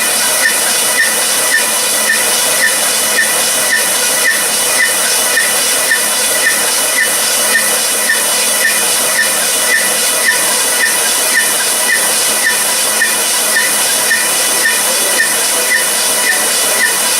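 A machine running steadily with a constant hiss and several steady tones, and a light regular tick about twice a second, as from something rotating.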